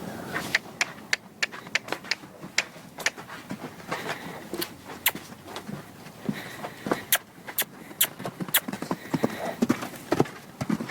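A mustang's hooves striking hard ground as the horse moves about: sharp, uneven hoofbeats, a few per second.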